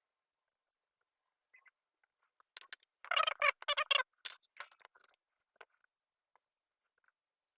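Short bursts of crackling and scraping from hand work on a circuit board during resoldering, clustered about two and a half to four seconds in, followed by a few faint scattered ticks.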